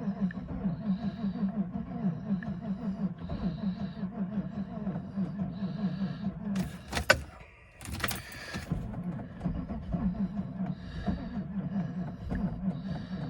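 Engine being cranked by its starter motor at −15 °C with a rapid, pulsing churn that does not catch. The battery is old and too weak in the cold, so the engine will not start. Cranking stops with a click about seven seconds in and starts again after a short pause.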